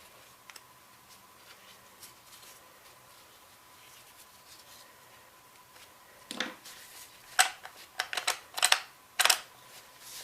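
Metal parts of a Ramset 122MD powder-actuated tool being handled and fitted together: faint ticks at first, then a run of sharp clicks and clacks over the last few seconds.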